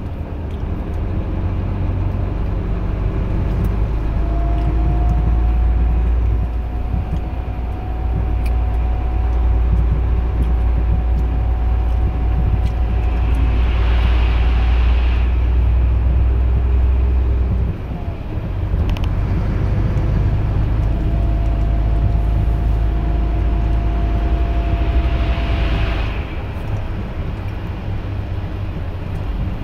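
Volvo FH13 500 truck's 13-litre straight-six diesel, heard from inside the cab while driving: a steady low drone with a faint whine over it. The drone drops away briefly twice, and two short hisses come about halfway through and near the end.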